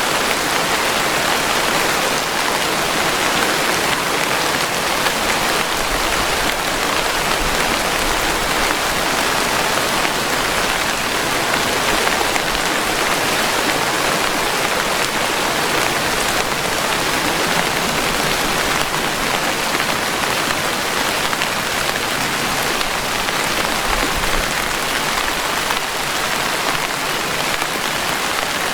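Steady heavy rain falling: a dense, even hiss that stays constant throughout, with no thunder.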